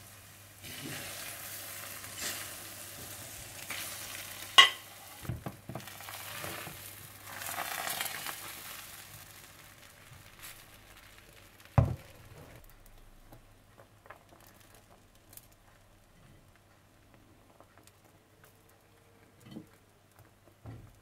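Egg paratha sizzling as it fries in a pan, with two sharp knocks about four and a half and twelve seconds in. The sizzling dies down after about ten seconds, leaving only faint small ticks.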